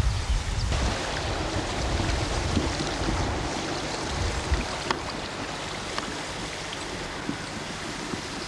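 Steady rush of a shallow, fast river running white over rapids, with wind buffeting the microphone in the first few seconds and a few light clicks.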